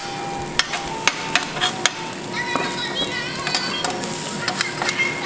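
Food sizzling on a large iron griddle plate while a metal spatula stirs and presses it, with frequent sharp clicks and scrapes of metal on the iron.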